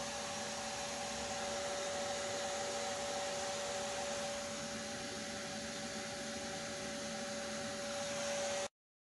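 Steady hiss with a constant mid-pitched hum, like a small machine running, which cuts off suddenly near the end.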